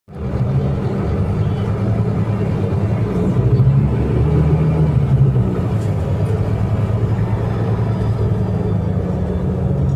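Scania K310IA articulated bus's diesel engine running with a steady low drone, swelling slightly in pitch and loudness about four to five seconds in.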